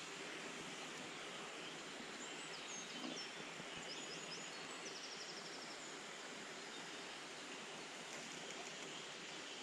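River water running over a stony bed, a steady hiss. A few faint high bird chirps come in a few seconds in.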